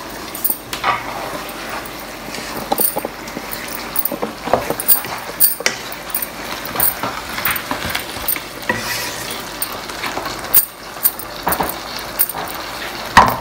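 Wooden spatula stirring and turning potato and aubergine curry in a non-stick wok, with irregular knocks and scrapes against the pan over a steady sizzle from the frying.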